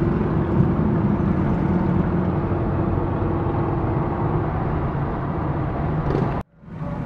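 A motor vehicle's engine running steadily, a continuous low drone with a noisy wash over it. It cuts off suddenly about six seconds in.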